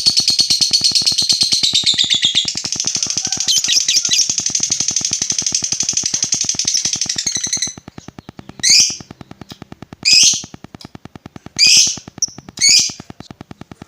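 Lovebird chattering in one long, rapid, high trill (ngekek panjang) that stops suddenly about eight seconds in. It is followed by four separate short, loud calls, each falling in pitch.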